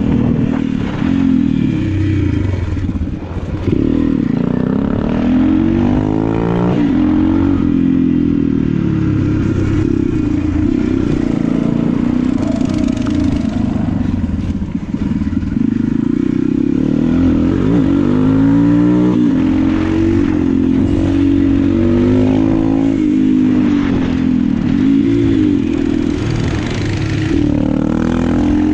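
Go-kart's Honda GX270 single-cylinder four-stroke engine running while driving, its pitch rising and falling over and over as the throttle is opened and eased off.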